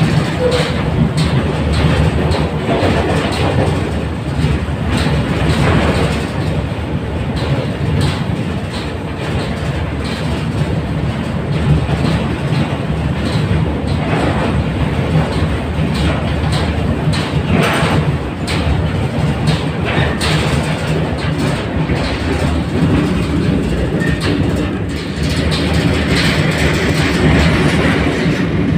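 Freight train of loaded steel-coil flat wagons rolling past on the adjacent track: a steady rumble of wagon wheels on rail, with repeated clicks and clatter over rail joints.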